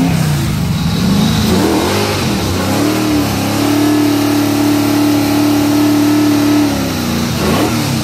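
Naturally aspirated engine of a fox-body Mustang drag car revving during a burnout to heat its rear tyres before a race. The revs waver, climb about three seconds in and hold steady at high rpm for about three seconds, then drop and give one short blip near the end.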